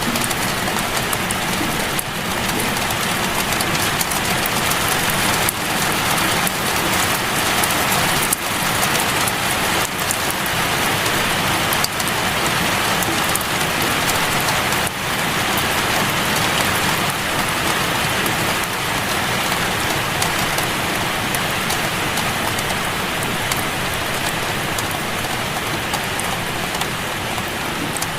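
Steady rain, an even hiss with scattered sharper drop ticks.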